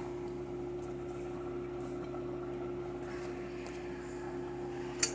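Steady mechanical hum with a faint hiss, then one sharp clink near the end, typical of a metal-rimmed glass pot lid knocking the rim of the pot as it is lifted.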